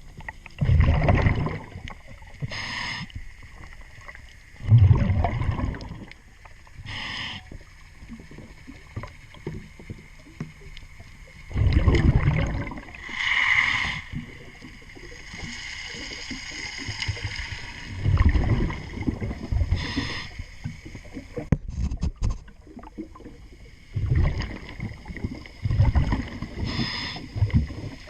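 Scuba diver breathing through a regulator underwater, in a steady cycle about every six seconds. Each inhale gives a short whistling hiss through the regulator, and each exhale a rumbling gush of bubbles.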